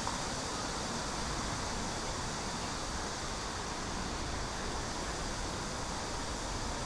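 Steady city street noise on a busy shopping road: a continuous hum of traffic and surrounding activity.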